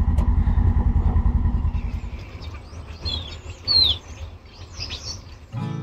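Side-by-side UTV engine running with an even low pulsing, fading out after about two seconds. Birds then chirp with short rising and falling calls, the loudest about three to four seconds in.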